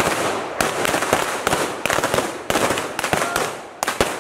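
Gunfire from a staged Wild West gunfight, guns firing blanks. The shots come in a rapid, irregular string of about two or three a second, each trailing off in an echo.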